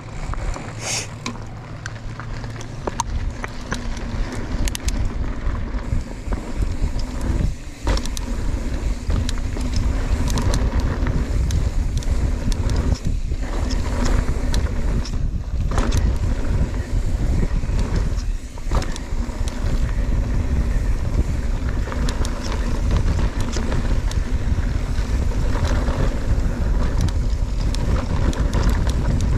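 Wind buffeting the microphone on a fast mountain-bike ride, with a low rumble and scattered clicks and rattles.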